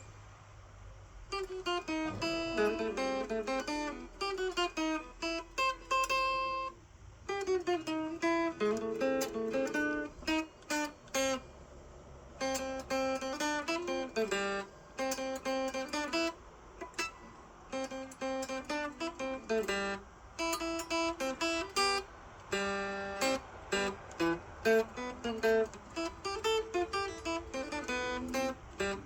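Guitar played solo: a steady run of plucked notes and chords, with a few brief pauses between phrases.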